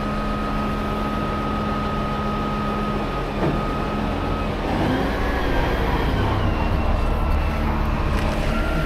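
Heavy diesel engine running at working speed with a steady high whine while a rotator tow truck's winches pull on a stuck container forklift. About four to five seconds in, the steady tones give way to slightly gliding ones and the low rumble grows louder.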